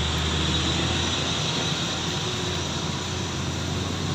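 Heavy trucks passing on a road: a steady rumble of diesel engines and tyre noise.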